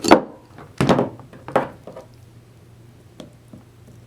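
Three short knocks from ratchet parts and tools being handled on a workbench, in the first second and a half or so.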